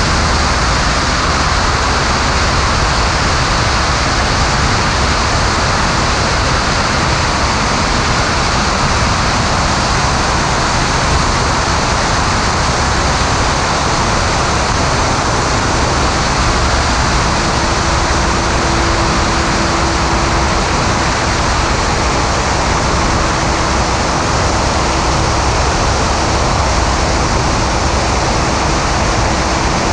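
Steady rush of wind over a camera mounted outside a Maule M5-180C light aircraft in flight, with the drone of the plane's engine and propeller beneath it. A faint steady tone comes in about halfway through.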